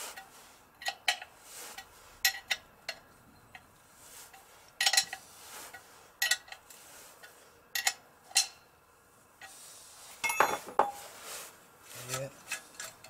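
Small metal engine parts clinking and knocking against the aluminium crankcase of a Yamaha XS650 as the oil pump and tacho drive are handled and fitted: scattered sharp clinks with a brief ring, and a quick run of heavier knocks about ten seconds in.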